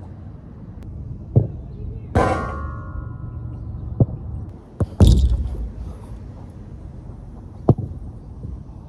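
Soccer ball being kicked around a small metal-framed goal on artificial turf, giving several short thumps. About two seconds in the ball strikes metal with a clang that rings for about a second, and a louder bang comes about five seconds in.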